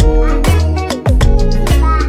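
Upbeat background music with a strong bass line and a steady beat.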